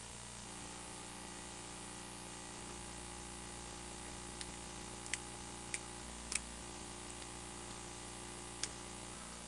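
Quiet room tone with a steady hiss and low hum, broken by five small, sharp clicks spread between about four and nine seconds in.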